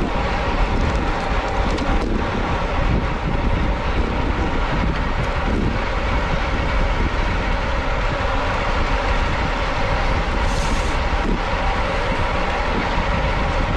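Steady rush of wind buffeting the microphone of a camera riding along on a racing bicycle at speed, mixed with tyre and road noise.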